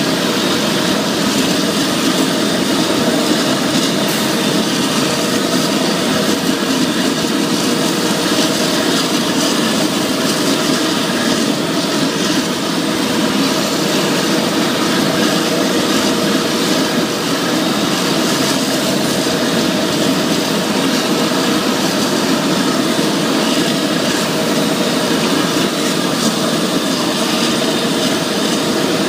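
Claas Jaguar 980 self-propelled forage harvester's V12 engine running steadily under full load as the machine chops standing corn for silage. A loud, even mechanical din with a faint steady hum and no let-up.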